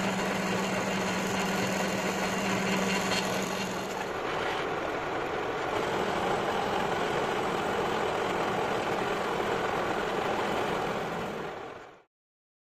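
Metal lathe running with an electric hand drill driving the top slide's feed screw, the drill adding a steady hum; after about four seconds the hum drops away and the lathe keeps running as the tool takes a taper cut on steel. The running noise fades out near the end.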